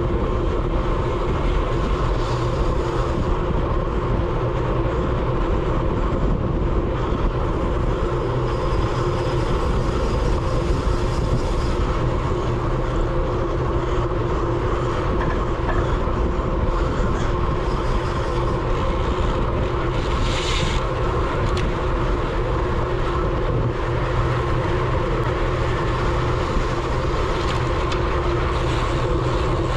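Steady wind rush over a bike-mounted GoPro microphone on a road bike at race speed, with the hum of the tyres and drivetrain underneath. A short hiss cuts through about twenty seconds in.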